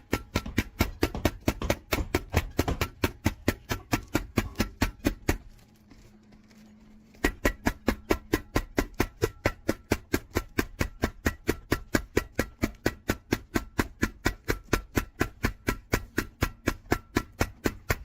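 Background music with a steady, fast percussive beat of sharp clicks, about four a second, that drops out for a couple of seconds near the middle.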